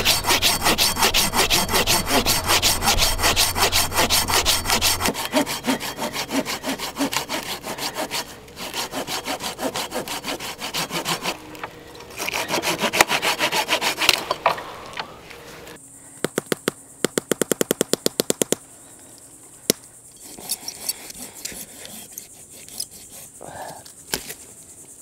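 Silky Pocket Boy 170 folding saw cutting through dead wood with quick, rhythmic back-and-forth rasping strokes, in several short runs with brief pauses between them.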